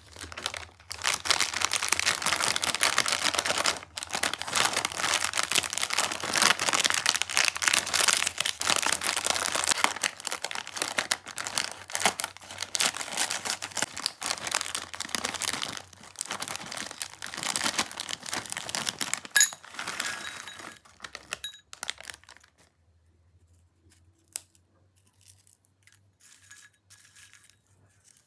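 Plastic Kurkure snack packets crinkling as they are handled, a dense continuous crackle for about twenty seconds that then dies down to a few faint scattered rustles near the end.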